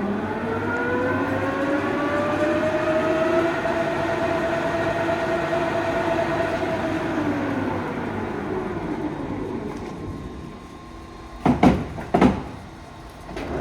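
Headstock gearing of a LeBlond 36" x 144" hollow-spindle engine lathe whining as the spindle speeds up. It then runs steady and coasts down, the whine falling in pitch. Two loud clunks follow near the end.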